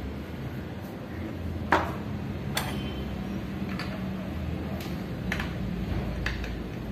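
Scattered light metallic clicks, about six, as a metal cap is handled and threaded by hand onto a suspension fork tube, over a steady low background hum.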